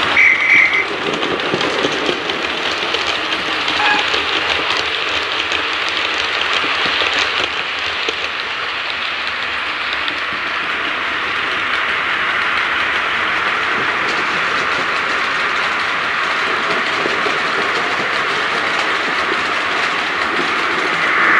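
Model train running past on the layout track: a black tank locomotive hauling maroon coaches. The motor and wheels on the rails make a steady rattling rumble, with rapid clicks.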